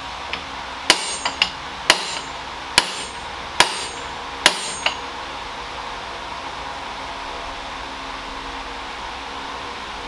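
Hammer blows on metal, about eight in the first five seconds, unevenly spaced and some lighter than others, each with a short metallic ring. They are knocking a Saab 9-3 intermediate driveshaft out of its mid-shaft support bearing without a press. A steady hum carries on underneath after the blows stop.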